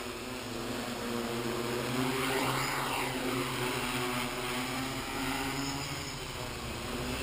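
MikroKopter hexacopter's six motors and propellers buzzing in low flight, the pitch wandering up and down as the throttle and tilt change. It grows louder about two seconds in as the craft comes nearer.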